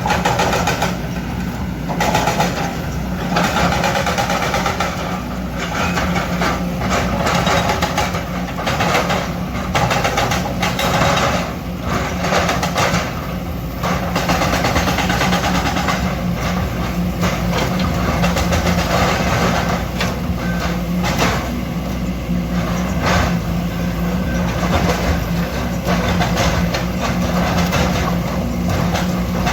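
Kobelco hydraulic excavator's diesel engine running steadily, with irregular knocks and scrapes of rock and metal throughout.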